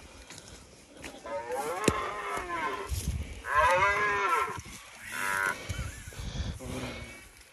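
Red deer stag roaring: three calls about a second long each, rising then falling in pitch, the middle one the loudest. A sharp click sounds about two seconds in.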